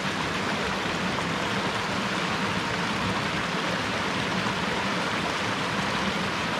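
Steady rush of water from a creek's small waterfall.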